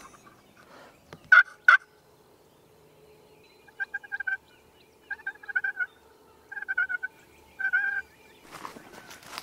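Wild turkey gobbling four times about a second apart, each gobble a short rattling burst. About a second in there are two sharp, loud clicks.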